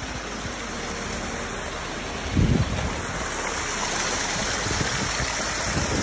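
Water running and splashing over the rocks of a built stone waterfall, a steady rush that grows a little louder and brighter from about halfway through. A brief low thump about two and a half seconds in.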